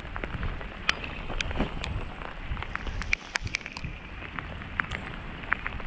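Steady rain falling on the river and bank, with single drops ticking sharply close by many times a second, over a low rumble of wind on the microphone.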